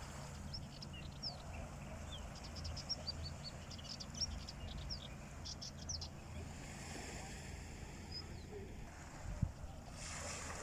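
Small birds chirping in quick short calls through the first half or so, over a steady low rumble by the sea.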